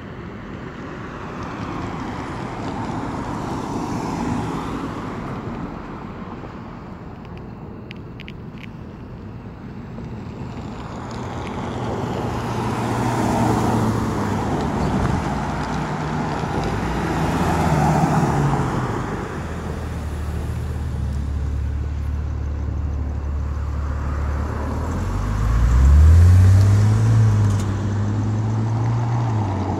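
Road traffic: several vehicles pass one after another, each swelling and fading. Near the end, a nearby vehicle's engine hums low and rises in pitch as it accelerates; this is the loudest moment.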